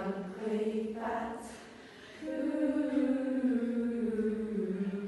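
Voices singing a slow tune. About two seconds in, one long note is held, sliding slowly down in pitch.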